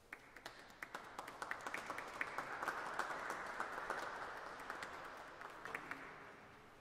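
A congregation applauding, the individual claps distinct, swelling for about three seconds and then dying away.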